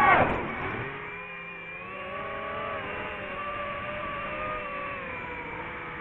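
DJI FPV drone's propeller motors whine, then drop sharply in pitch and level at the start as the throttle is chopped, with a brief knock. A quieter, wavering motor whine continues after that.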